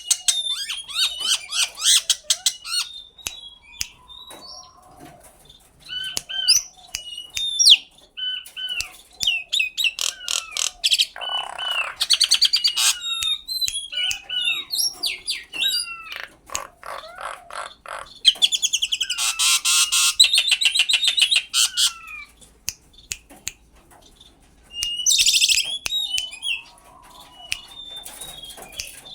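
Common myna calling in a varied run of gliding whistles, harsh squawks and rattling clicks, coming in phrases with short pauses between them.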